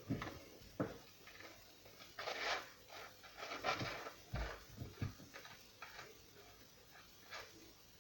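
Butter knife scraping across toast and knocking lightly against the plate and jar as a spread is put on. There are short faint clicks and knocks, with two brief scrapes about two and three and a half seconds in.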